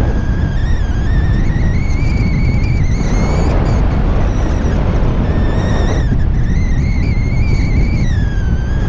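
Wind rushing over the microphone in paraglider flight, with a steady high whistle-like tone that slowly rises and falls in pitch and drops out briefly about halfway through.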